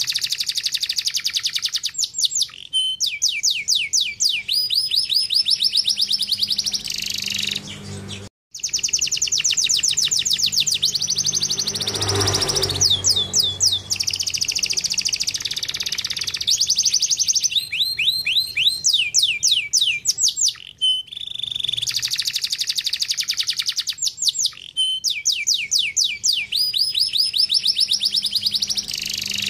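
Domestic canary singing a long, fast song of rapid repeated trills and sweeping phrases, with a brief gap about eight seconds in.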